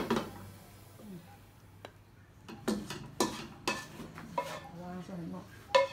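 A handful of sharp clinks and knocks of dishes and kitchen utensils, coming from about halfway through.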